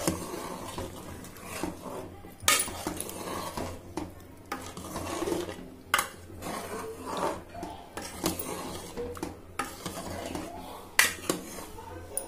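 Steel ladle stirring chicken curry in an open pressure cooker, scraping along the metal pot with a few sharp clinks against its side.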